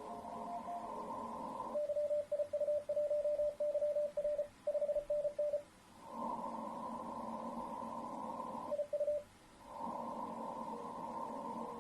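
Morse code (CW) signal received on an Icom ham radio: a single steady tone keyed into dots and dashes over the receiver's narrow band of hiss. The hiss dips while the tone is keyed. The keying stops about four seconds in, with one more short burst near nine seconds.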